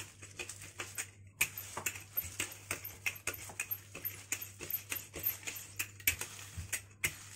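Wooden rolling pin pushed back and forth over cookie dough sandwiched between plastic bags: a quick run of crinkling, clicking strokes, several a second, as the plastic crackles under the roller.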